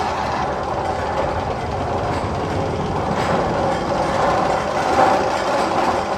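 Roller coaster train running along its steel track, a steady rumbling clatter.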